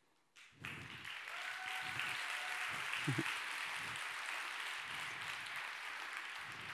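Audience applauding in a large hall. The applause starts about half a second in and slowly dies away toward the end.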